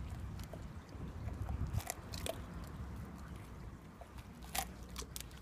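Ridgeback dog biting and chewing a raw tiger prawn, its shell crunching in about five short, sharp crunches spread through the moment.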